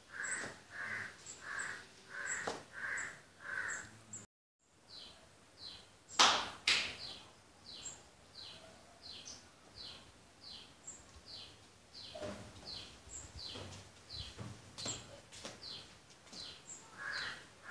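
Birds calling: a run of harsh calls about twice a second at the start and again near the end, and a short falling chirp repeated over and over in between. A loud knock comes about six seconds in, with fainter knocks around two and a half and twelve seconds, and the sound cuts out briefly just after four seconds.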